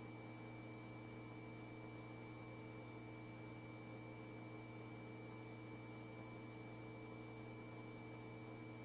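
Faint steady electrical hum and hiss with a couple of thin high steady tones: the open police radio audio feed with no one transmitting.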